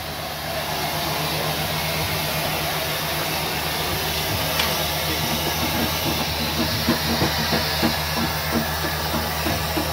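Steady hiss of steam from a standing Victorian Railways K-class steam locomotive, K153, with a low steady hum underneath.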